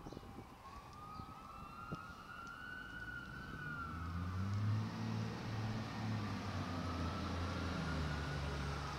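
Emergency vehicle siren on a slow wail, its pitch rising and falling about twice. From about halfway through, a heavy engine's low rumble grows underneath it.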